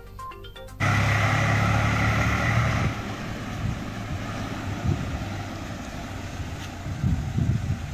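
Tractor diesel engine running as the tractor and its trolley move off, loud for the first couple of seconds and then steadier and quieter, with a few knocks near the end. A snatch of music cuts off just before the engine comes in.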